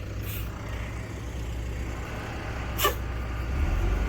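Heavy-equipment diesel engine running steadily, picking up a little near the end, with a brief hiss near the start and a short sharp sound about three seconds in.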